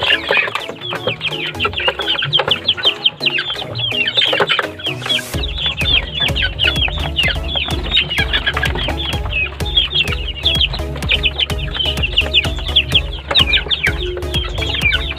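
A flock of young crossbred kampung chickens calling constantly with a dense stream of quick, high, downward-sliding peeps and clucks. Background music plays underneath, its steady bass beat coming in about five seconds in.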